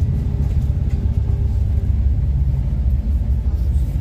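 Steady low rumble of a moving bus's engine and road noise, heard from inside the passenger cabin.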